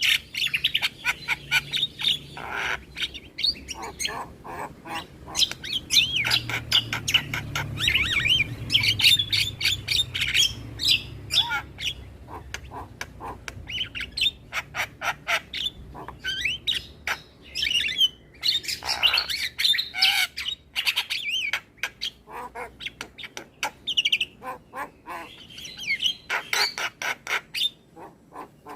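Javan myna (jalak kebo) singing: fast runs of harsh, clicking chatter mixed with whistled, sliding notes, in bursts with short pauses.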